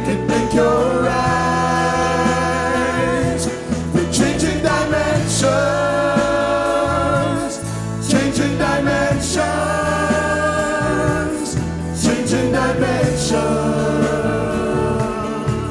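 Gospel-style Christian song in a passage without clear lyrics: long held vocal notes with vibrato, phrase after phrase, over a steady bass line.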